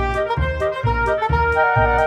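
Upbeat background music: a steady low drum beat about twice a second, with a bright instrumental melody above it.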